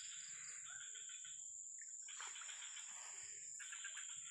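Faint chorus of insects: buzzing trills in short spells that start and stop, over a steady high-pitched whine.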